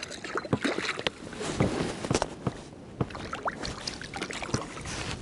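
Water splashing and sloshing at the side of an inflatable boat as a zander is grabbed out of the water by hand. Irregular knocks and rubbing of hands against the boat's rubber tube come through as well.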